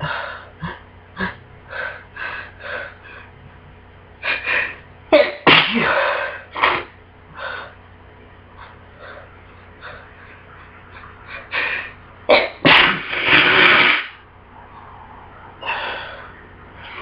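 A person with a bad cold sneezing over and over, short sneezes in between and the loudest ones about five seconds in and again about twelve seconds in.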